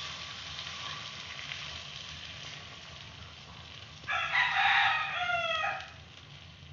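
A rooster crows once about four seconds in: a single call of nearly two seconds that drops in pitch at the end. Behind it is a faint steady hiss.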